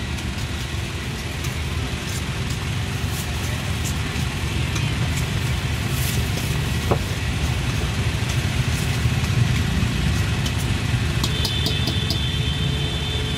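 Steady low engine rumble, with scattered light clinks of a metal ladle stirring sweet corn in a steel bowl.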